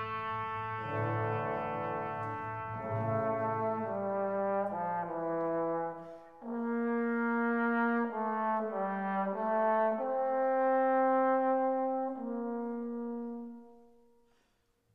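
Background music of slow, long held notes that fades out near the end.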